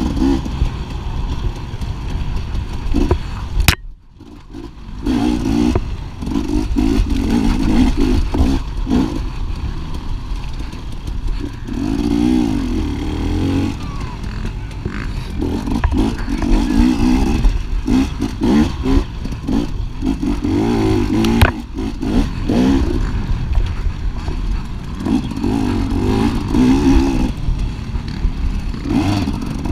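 250-class off-road motorcycle engine ridden hard, its pitch climbing and falling again and again as the throttle is worked through the gears, with clatter and knocks from the rough trail. The sound drops away sharply for about a second around four seconds in, then comes back.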